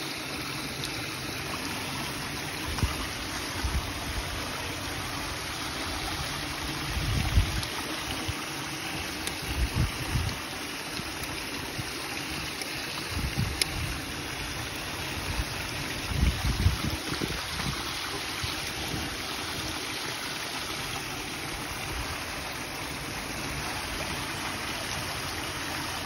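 Water feature's small cascade falling steadily in thin streams over a stone ledge and splashing onto the paving, with a few brief low bumps on the microphone.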